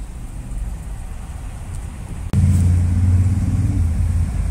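Low engine rumble of a nearby motor vehicle. About two seconds in, a click comes and the engine sound jumps much louder, then eases off near the end.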